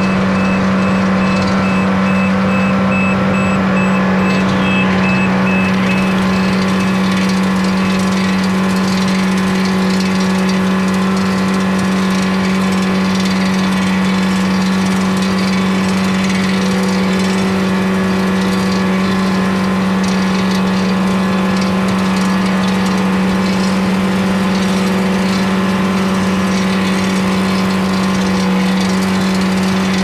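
Engine of heavy paving machinery running steadily, a constant drone with a strong low hum that holds the same pitch throughout.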